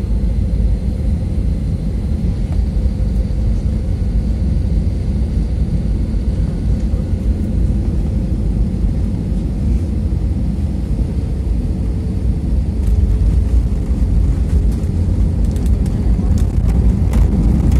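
Cabin noise of an Airbus A320-family airliner landing: a steady low rumble of engines and airflow, growing louder about three quarters of the way in as the jet touches down and rolls out on the runway with its spoilers up, with clicks and rattles near the end.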